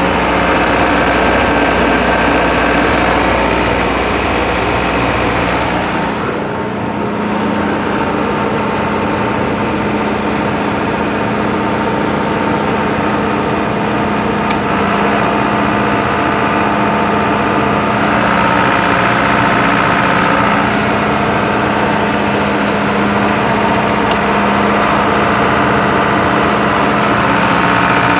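John Deere diesel engine of a 2006 Kohler 60 kW generator running at steady speed, with no load on the load bank. Its tone shifts about six seconds in, as a deep hum gives way to a steadier, higher drone.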